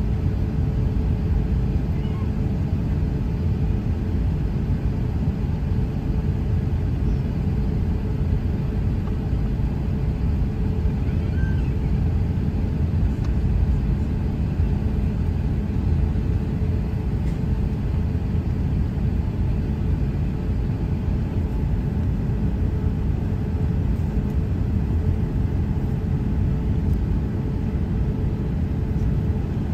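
Steady low rumble inside the cabin of an Emirates jet airliner taxiing on the ground, its engines running at low thrust.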